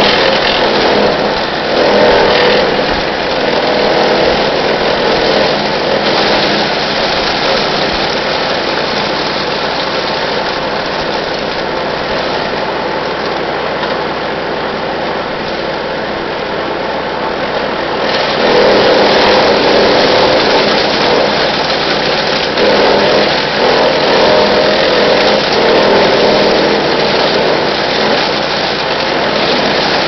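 Brush Master 3-inch gas chipper shredder running steadily at full speed, chewing up branches fed into its side chute: a loud chipping spell about a second in and a longer one from about 18 seconds on, with the machine running unloaded in between.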